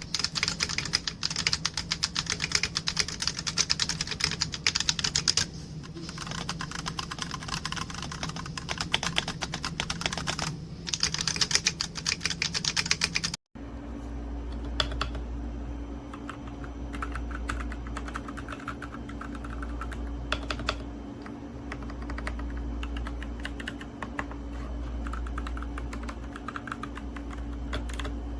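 Fast typing on a mechanical keyboard: a dense, rapid clatter of key clicks. After an abrupt cut about halfway through, the keystrokes come sparser and softer over a steady low hum.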